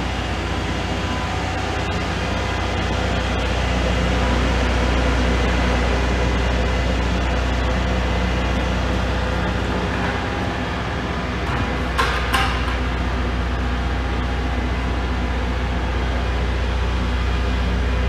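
Steady machinery hum with several fixed low tones, and two sharp knocks in quick succession about twelve seconds in.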